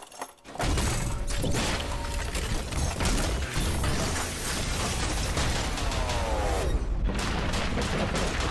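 Dense mechanical clattering and ratcheting of metal parts shifting and locking over a low rumble: a transformation sound effect for an animated intro. It starts about half a second in, a falling whine slides down near the end, and the clatter breaks off briefly before it resumes.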